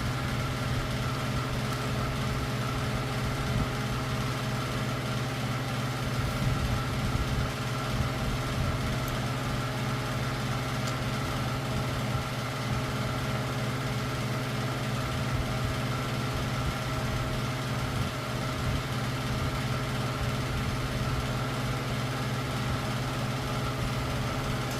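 Steady machine hum, holding the same pitch and level throughout.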